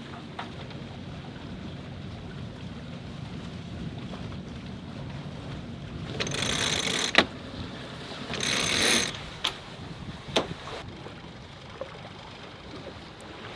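Mechanical gear on a sailing yacht: two short rasping bursts, a couple of seconds apart, followed by a few sharp clicks, over a steady background of boat and wind noise.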